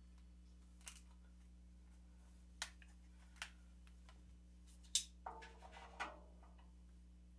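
Near silence over a low hum, broken by a handful of faint, short clicks and knocks from drumsticks being handled and tapped against an electronic drum kit's pads and rims. The sharpest click comes about five seconds in, followed by a short cluster of soft knocks.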